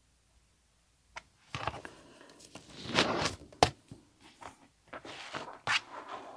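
Fabric and cutting tools being handled on a cutting mat: rustling and scraping that start about a second and a half in, a louder swish about three seconds in, and a few sharp clicks and knocks.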